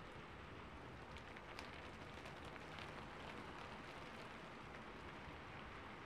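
Soft, steady rain: an even hiss with faint scattered drop ticks.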